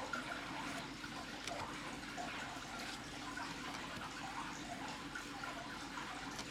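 Faint handling of trading cards: soft slides and small scattered ticks as cards are moved through the hand.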